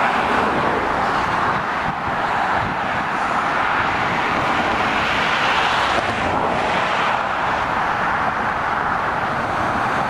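Steady motorway traffic noise: tyre roar and engine noise from trucks and cars passing along the carriageway, an even rushing sound without breaks.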